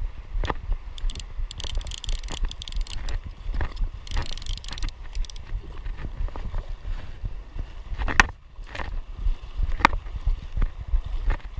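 Wading through shallow creek water: sloshing, splashing steps and scattered knocks over a steady low rumble, with two short bursts of hiss in the first half and a few sharper knocks near the end.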